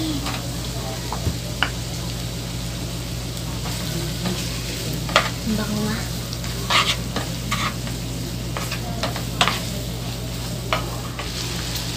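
Sliced bacon sizzling in a frying pan with butter, onion and garlic, stirred with a wooden spatula that scrapes and taps against the pan several times. A steady low hum runs underneath.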